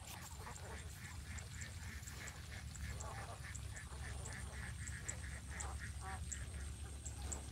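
A flock of domestic ducks quacking in a fast run of short, soft calls, several a second.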